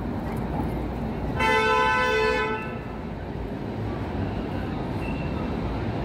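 A single vehicle horn blast lasting about a second and a half, over steady city street noise.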